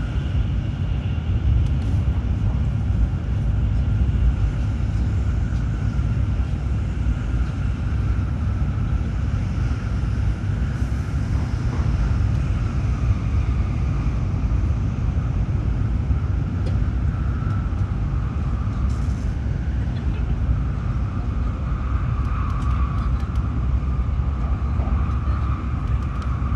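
Running noise of a Tokaido Shinkansen 700 series train heard inside the passenger car: a steady low rumble with a faint higher hum over it.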